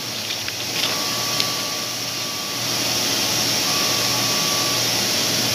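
Steady whirring machine noise with a faint high tone that comes and goes and a few faint ticks.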